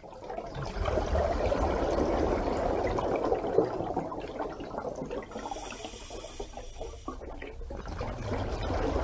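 Bubbling, pouring water, a steady watery rush that softens a little for a couple of seconds past the middle.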